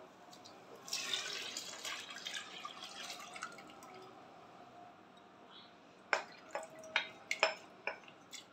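Water poured from a bowl into a pot of soaked haleem wheat and lentils, splashing for a few seconds and then trailing off. A quick run of sharp knocks against the pot follows near the end.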